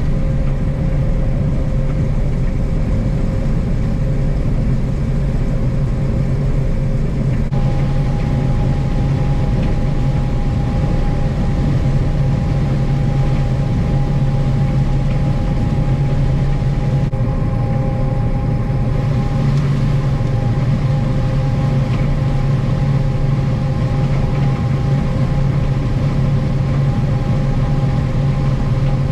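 Heavy farm machinery engine running steadily under a constant low hum, with a thin whine that comes in about seven seconds in and a second, higher whine joining around seventeen seconds.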